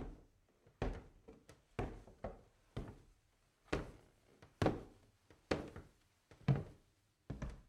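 Boots walking on a wooden path, one footstep about every second, each a hollow knock on the boards.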